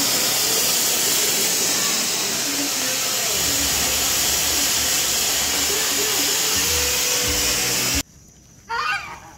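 Ground fountain firework spraying sparks with a loud, steady hiss, which cuts off abruptly about eight seconds in. A brief high-pitched cry follows near the end.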